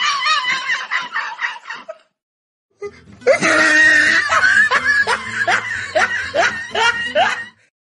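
A person laughing in quick repeated giggles, in two runs broken by a short silence about two seconds in.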